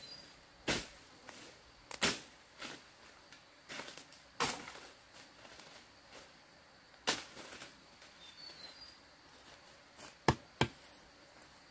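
Machete strikes on wood and brush: single sharp chops, irregularly spaced, with two quick ones close together near the end.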